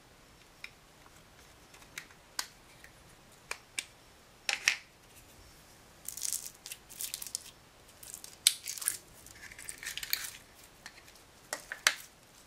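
Light clicks and taps of a hard plastic cake-slice toy container being handled and opened, then, from about six seconds in, bursts of crackly rustling as bead-filled glitter slime is scooped out of it.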